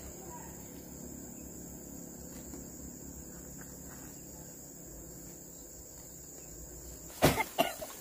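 Insects chirring steadily in the grass, a constant high-pitched buzz. Just before the end come a few loud, sharp rustles and knocks from the harvest and sacks being handled.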